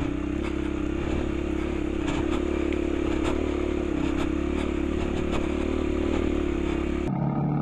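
Motorcycle engine running at a steady speed, with scattered clicks and clatter from the rough road. About seven seconds in, the sound changes abruptly to a lower, duller engine note.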